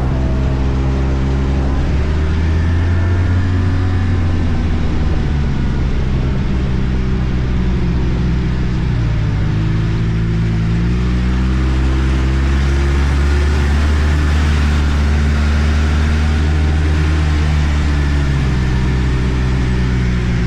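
Arctic Cat turbo snowmobile's four-stroke engine running under way, its engine speed shifting down and back up a few times as the throttle changes.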